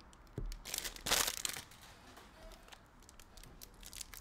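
Foil wrapper of a trading card pack crinkling and tearing as it is handled and opened, in two louder bursts about half a second and a second in, then softer rustling.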